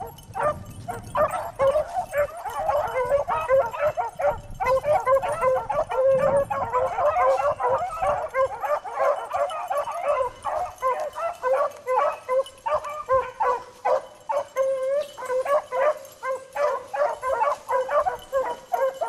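A pack of beagles baying while running a rabbit's scent trail, many hound voices overlapping in a nearly unbroken cry.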